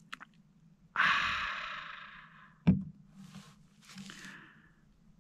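A man's long, breathy sigh of satisfaction just after a swig of beer, fading out over a second or so, then a single sharp knock and a couple of fainter breathy exhales.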